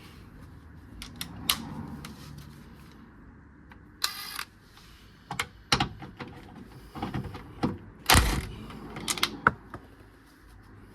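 Metal hand tools clicking and clanking on bolts under a car while a subframe is being unbolted, with a short rasp about four seconds in and the loudest clank a little after eight seconds.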